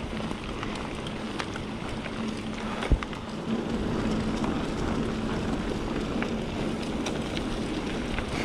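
Mountain bike rolling fast on a dirt trail: wind on the microphone and tyre noise, with scattered small clicks and rattles and one sharp knock about three seconds in.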